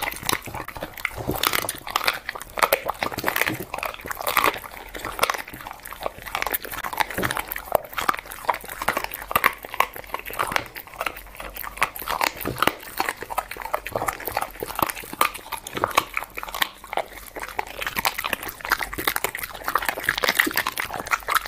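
A dog chewing raw meat fed by hand, with quick wet smacks of its lips and jaws over and over.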